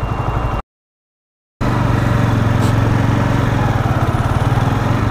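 Honda CBR125 motorcycle's single-cylinder engine idling with a steady pulsing hum. The sound drops out completely for about a second early on, then returns louder.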